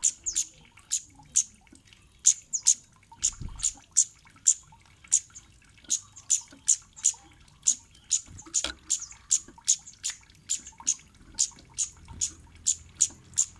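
Kemade bird giving short, high 'cit' chip calls over and over, two or three a second in an even run. It is the call used as a lure recording to make other kemade answer.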